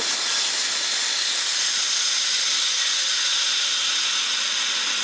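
Compressed air hissing steadily out of a 1998 Lincoln Mark VIII's front air-suspension air spring (air bag). The solenoid valve has been turned one click to vent, and the bag is emptying. The hiss starts suddenly.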